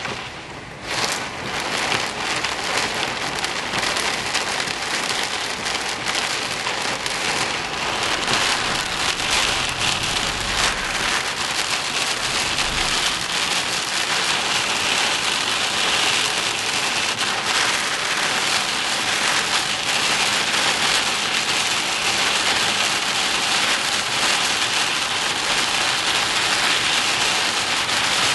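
Heavy rain falling steadily, a dense hiss of drops striking a surface. A brief low rumble comes about ten seconds in.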